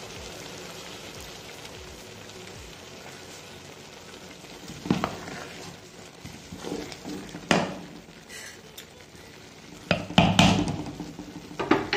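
Wooden spoon stirring and turning part-cooked rice in a metal pot, with several scraping strokes in the second half, the loudest near the end. Under it runs a steady low sizzle of the last bit of water cooking off as the rice nears the dum stage.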